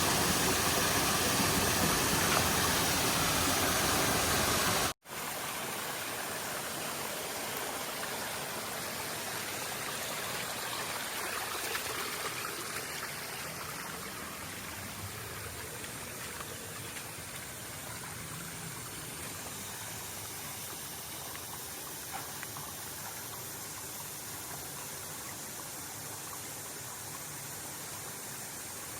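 Steady rushing of stream water over rocks. The sound cuts sharply about five seconds in, then carries on quieter.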